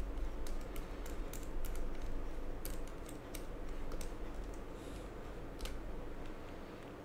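Light, irregular clicks and ticks from a small precision screwdriver working tiny screws out of a laptop's hard-drive bracket, over low handling rumble.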